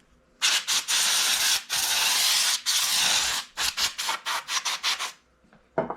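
Cleaning pad scrubbing over the top of a mixing-console channel strip. It makes a rasping rub in three long strokes, then a run of quicker, shorter strokes that stop about five seconds in.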